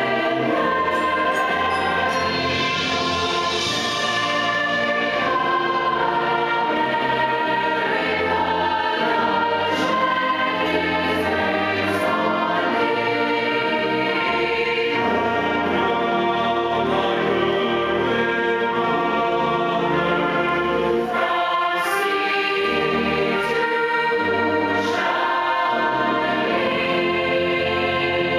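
A choir singing with instrumental accompaniment, continuous music at a steady level.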